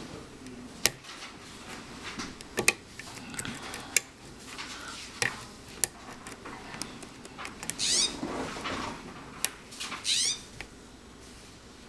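Lock pick and tension wrench working the spring-loaded, serrated pins of a six-pin Marks lock: scattered sharp clicks, and twice near the end a short scratchy scrape of the pick across the pins.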